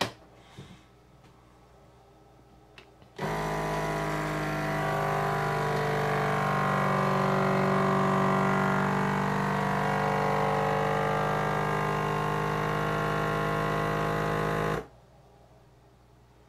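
Countertop vacuum sealer's pump motor running steadily for about eleven seconds, starting a few seconds in and cutting off abruptly, drawing the air out of a bag of sweet corn.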